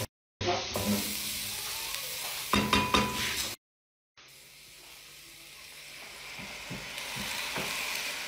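Chopped red onions sizzling as they fry in a stainless steel pan, stirred with a spoon that knocks and scrapes against the pan around three seconds in. The sound cuts out briefly twice, and the sizzle then comes back quieter and slowly grows louder.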